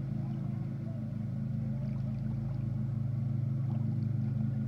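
Engine running at a steady speed, an even low hum.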